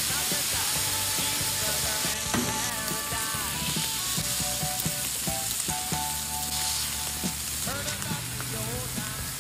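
Bacon strips and smashed beef patties sizzling on a hot flat-top griddle, a steady frying hiss, with background music underneath.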